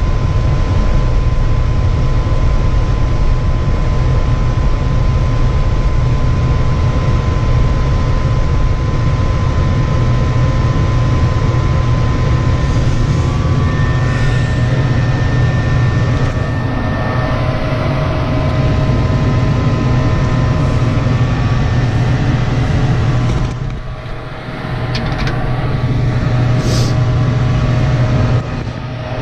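Lennox ML193 gas furnace running, with a loud, steady low drone from its motors and a faint steady whine over it. The drone briefly drops away about three-quarters of the way through and again just before the end.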